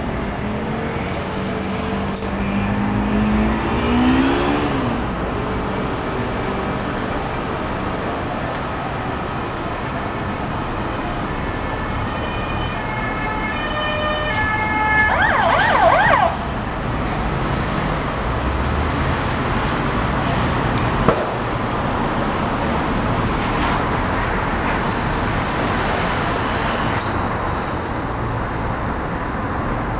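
Steady road traffic noise, with a vehicle speeding up a few seconds in. About halfway through an emergency vehicle's siren sounds, stepping between tones and then switching to a fast warble before stopping abruptly.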